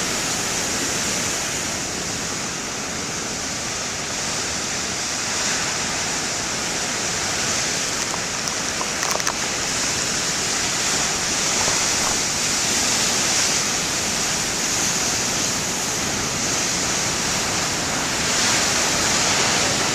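Heavy ocean surf: big waves breaking in a steady, unbroken rush of water.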